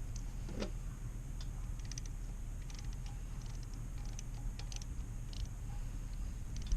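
Scattered light clicks and taps from hands turning a dirt bike's oil drain bolt out by hand, over a steady low background hum.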